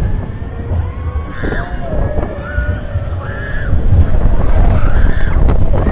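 Wind buffeting the microphone as a swinging pendulum thrill ride carries it through the air, loudest in the second half. Several short, high, bending cries, like riders' voices, come through the wind in the middle.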